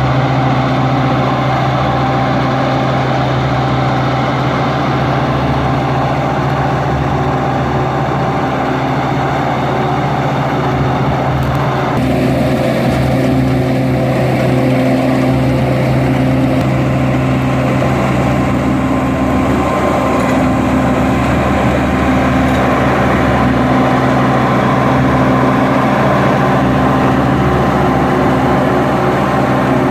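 Combine harvester's diesel engine and machinery running steadily under load, a continuous hum with a few steady tones. The sound changes abruptly about twelve seconds in and then continues just as steadily.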